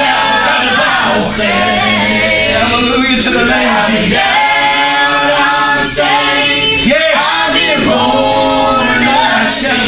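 Church congregation singing a worship song together, men's and women's voices in long held notes.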